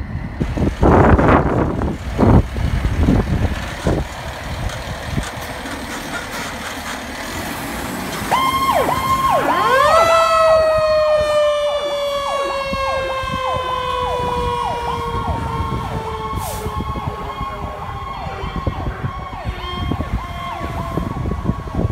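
Fire engine leaving on an emergency call: its engine is heard first, then from about eight seconds in its siren sounds. The siren gives a rapid yelp, with a second tone that winds up around ten seconds and then slowly falls away.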